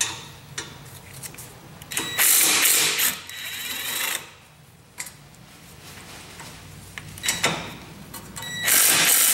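Cordless impact wrench rattling as it undoes a BMW E46's rear brake caliper bracket bolts: a run of about two seconds starting two seconds in, a short burst around seven seconds, and another run near the end.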